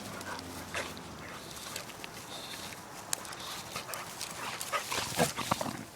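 Two puppies play-wrestling: scattered dog noises and scuffling, with a louder flurry of short sounds about five seconds in.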